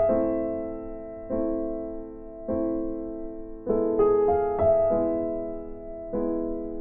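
Background music on electric piano: soft chords struck about once a second, each ringing out and fading, with a quicker run of notes around four seconds in.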